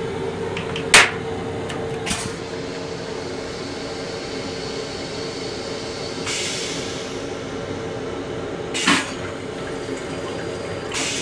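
Stainless steel train toilet: the plastic seat clacks down sharply about a second in, then the flush sends water hissing through the bowl for about two seconds, ending in a thump. A steady hum runs underneath throughout.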